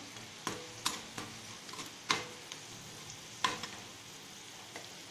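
Garlic cloves and dried red chillies sizzling in oil in a granite-coated frying pan, stirred with a metal slotted spoon that clicks sharply against the pan about four times.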